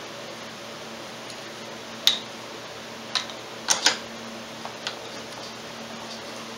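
Metal parts clinking as a front wheel hub with its brake disc is handled and seated onto the ATV's steering knuckle: a sharp clank about two seconds in, three more a second or so later, then two faint ticks. A steady hum runs underneath.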